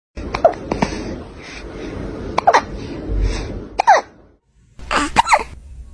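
Kittens hiccuping: short sharp hics, several with a tiny falling squeak, coming every second or two, with a brief break about four seconds in before two more hics close together.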